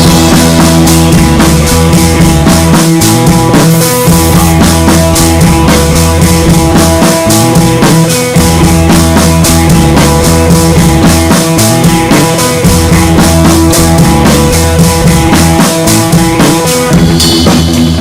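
Loud music with a drum kit keeping a steady beat.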